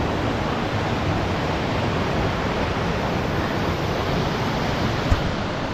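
Steady rush of a flowing mountain stream, with a single short click about five seconds in.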